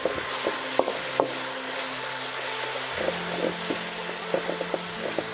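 Leafy greens and lemongrass stir-frying in oil in a steel wok: a steady sizzle, with a wooden spatula scraping and knocking against the pan, two sharper knocks about a second in and lighter ones later.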